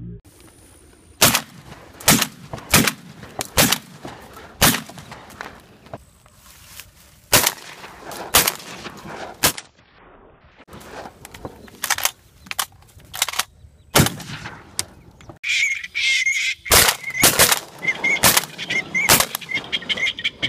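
Repeated shotgun shots, around twenty, fired at flying ducks, often in quick pairs or threes. From about three quarters in, waterfowl calling between the shots.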